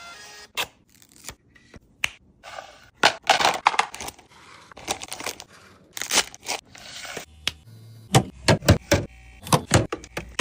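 Irregular crinkling, scraping and clicking of snack packaging and plastic containers being handled, as when restocking a mini fridge, in quick uneven bursts with several sharp knocks.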